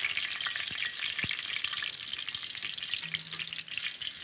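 Breadcrumb-coated pork cutlets frying in 350-degree oil in a skillet: a steady crackling sizzle, with one light tap about a second in.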